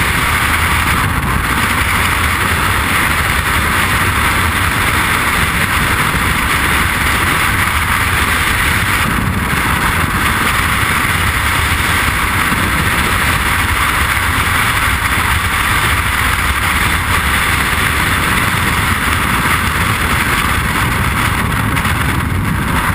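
Freefall airstream buffeting a camera's microphone during a skydive: a loud, steady rush of wind noise.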